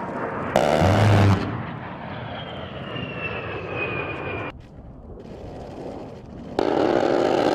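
A-10 Thunderbolt II's 30 mm GAU-8 rotary cannon firing two bursts of about a second each, a loud buzzing strafing 'brrrt', one shortly after the start and one near the end. Between them the jet's engine whine falls in pitch as it passes, then cuts off suddenly.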